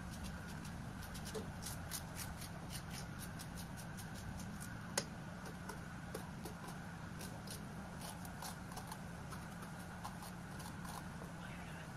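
Small kitchen knife slicing an onion held in the hand, a run of quick, crisp little cuts a few per second, with one sharper click about five seconds in.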